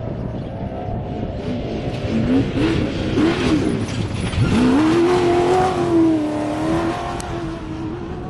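Off-road race vehicle's engine at hard throttle as it goes by, louder in the middle. The pitch wavers, then about four seconds in it climbs sharply and holds high.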